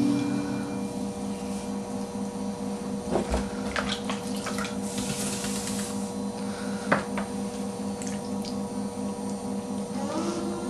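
Potter's wheel running with a steady hum, under the wet swishing of slip-covered hands shaping a clay bowl on it; a few short clicks or squelches.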